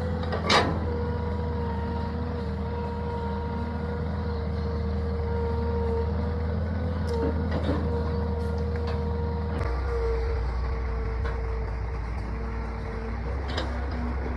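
Excavator's diesel engine running steadily with a held whine over it, a sharp knock about half a second in and a few lighter clicks later; the engine note shifts lower near the ten-second mark.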